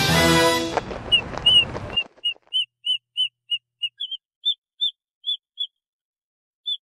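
Brass-led theme music cuts off about a second in and rings away. Then comes a run of short, high chirps like a small bird's, about three a second, which step up in pitch partway through and stop, then start again briefly near the end.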